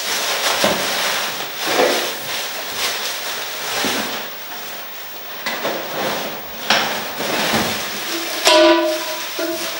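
Plastic wrapping and cardboard packaging rustling and crinkling in irregular bursts as a heavy cast-iron Dutch oven is pulled out of its box. About a second before the end, a steady pitched sound with overtones comes in.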